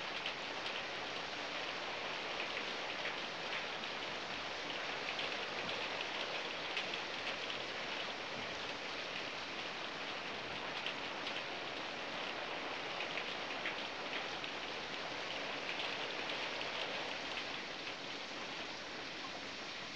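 Steady rain falling: an even hiss made of many fine drop ticks, easing slightly near the end.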